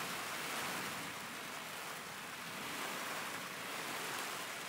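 Steady rain and wind on a greenhouse roof, an even hiss with no breaks.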